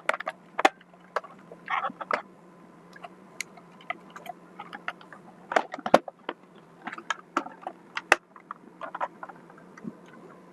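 Irregular small clicks, taps and scrapes of hands and a screwdriver working on the plastic housing and screws of a Xiaomi robot vacuum-mop as it is taken apart.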